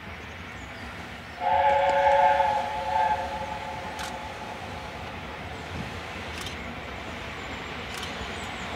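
A steam locomotive's whistle sounds a steady blast of several pitches at once for just over a second, beginning about a second and a half in, with a brief second toot just after. The approaching train then runs on with a steady low rumble.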